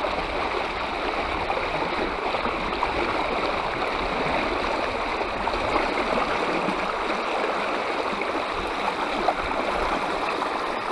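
Shallow creek riffle rushing and babbling steadily, loud and close to the microphone, with one brief knock near the end.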